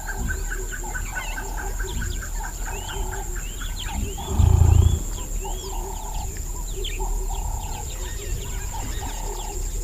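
Wetland animal chorus: a steady high insect drone, a mid-pitched call repeated about once a second, a rapid trill near the start and scattered bird chirps. A brief low rumble comes about four and a half seconds in.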